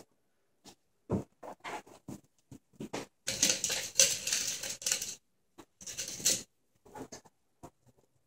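Ferrets scampering and scrabbling over towels, blankets and carpet: irregular pattering footfalls and scratches, with a longer spell of busy rustling about three to five seconds in.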